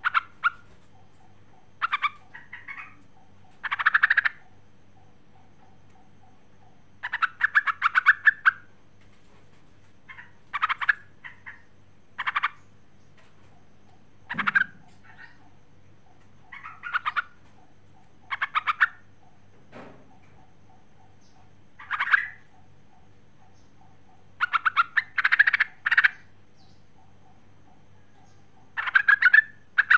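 Yellow-vented bulbul calling in short bursts of quick chattering notes, a burst every second or two.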